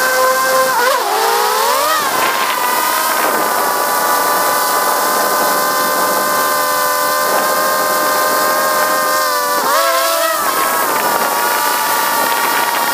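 Quadcopter drone's electric motors and propellers whining, heard from a camera slung beneath it: a steady stack of tones that bends and dips in pitch about a second in and again near ten seconds as the rotor speeds change.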